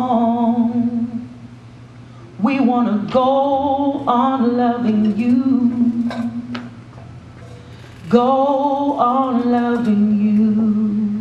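Voices singing a slow gospel hymn in long held notes with vibrato, in phrases separated by short quiet pauses.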